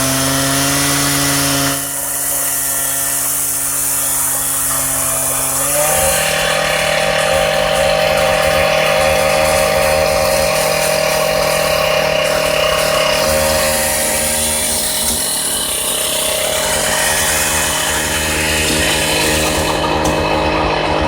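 Concrete wall saw running and cutting: a steady machine hum over a gritty noise. Its tone shifts about two seconds in and again about six seconds in.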